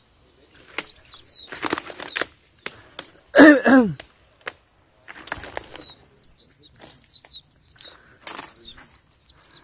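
Small birds chirping in quick, short, falling chirps, most often in the second half. Bursts of rustling come in between, and a brief loud voice-like sound gliding downward comes about three and a half seconds in.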